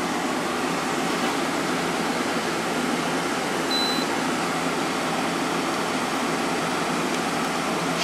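GE 8100 BTU window air conditioner running on cool with the fan on low and the compressor on: a steady rush of air over a low hum. A brief faint high beep about four seconds in.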